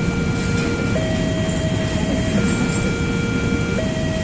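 Level-crossing warning alarm sounding its alternating two-tone pattern, switching between a higher and a lower pitch about every one and a half seconds. Under it runs the steady rumble of a passing train hauled by a CC 206 diesel locomotive.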